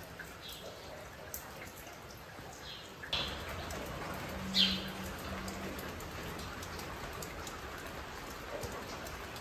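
Steady rain falling on a garden and pergola, getting heavier about three seconds in. A few short, high bird chirps sound through it.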